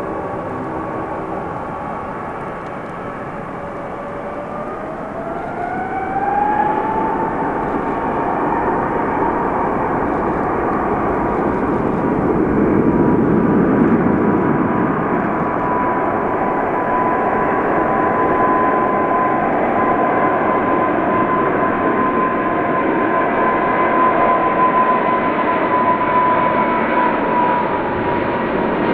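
Boeing 777-281(ER) airliner's jet engines spooling up to takeoff thrust: a whine rises in pitch about five seconds in as the sound grows louder, then holds steady over a broad rumble through the takeoff roll.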